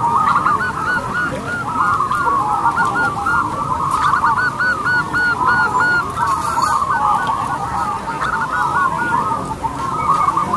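Many zebra doves cooing at once, their short coo notes, each rising and falling in pitch, repeating and overlapping without pause.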